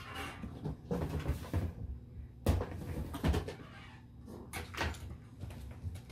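A wire pet cage door being handled, with a series of knocks, clicks and metallic rattles, the loudest about two and a half seconds in. Footsteps on a vinyl floor come near the end.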